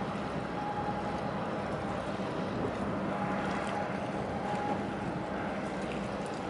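A boat engine running steadily under a wash of wind and water noise. A low hum and a fainter higher tone come and go.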